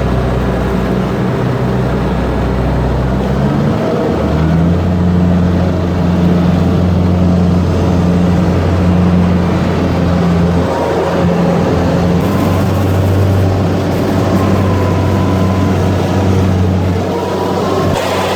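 Rice combine harvester's engine and threshing machinery running loudly, heard from the operator's seat; the engine's pitch steps up about four seconds in and shifts again later.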